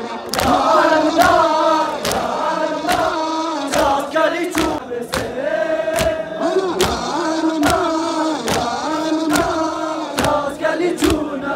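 Crowd of men chanting a mourning chant in unison, with a sharp, regular beat about every 0.7 seconds keeping time under the voices.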